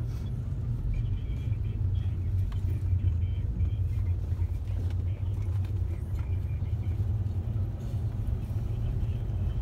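Steady low road and engine rumble of a car driving, heard from inside the cabin.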